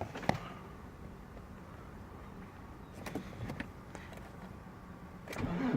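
A few light clicks over a faint hum, then near the end the starter begins cranking the Nissan Pathfinder's diesel engine on a cold start at −14 °C.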